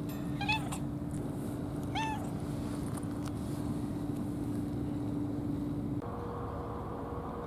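A tabby cat meowing twice, short calls that rise and fall, about a second and a half apart, over a steady low hum.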